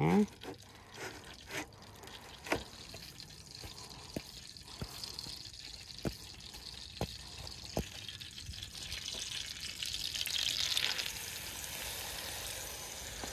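Raw steak sizzling in a hot buttered frying pan on a Coleman butane camp stove. The hiss grows louder and is strongest around ten seconds in, then holds steady. Before it come a few light clicks and knocks of things being handled.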